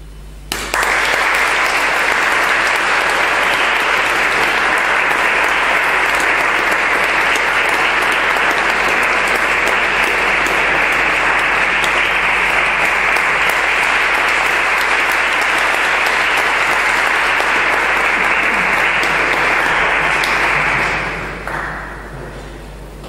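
Audience applauding. It starts suddenly about half a second in, holds steady for about twenty seconds, then dies away.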